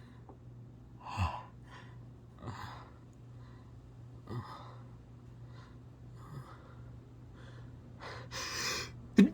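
A person's short gasping breaths, several seconds apart, in the build-up between sneezes, with a longer breath near the end and the sharp start of the next sneeze right at the end.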